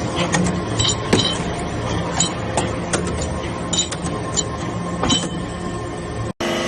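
Hydraulic metal-chip baler running with a steady machine hum, over which come irregular sharp metallic clinks. The sound cuts out abruptly for a moment near the end.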